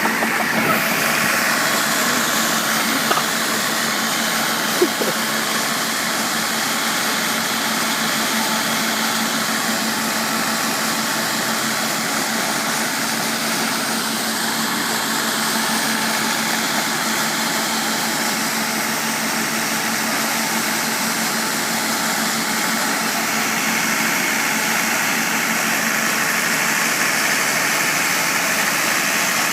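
Diesel engine driving a double-suction water pump, running steadily with a constant hum. Two brief clicks come in the first few seconds.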